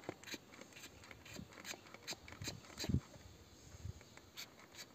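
Hand trigger spray bottle pumped in quick short squirts, about two to three a second, spraying petrol onto a diesel tiller's oil filter screen to clean it. A dull thump about three seconds in.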